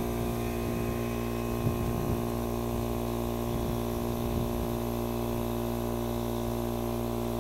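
Steady machine hum with several fixed tones over a low, even hiss, heard while the air cannon is being pressurized toward 100 psi.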